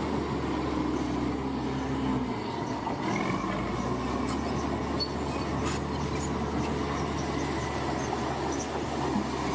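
Bulldozer's diesel engine running under work, with a thin metallic squeal from the running gear; the engine note shifts about two seconds in.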